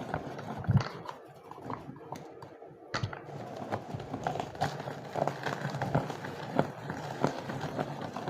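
Manual kitchen chopper being worked by hand to grind green chillies, ginger and garlic into a paste: repeated irregular knocks and clatter of its stiff handle and the food inside.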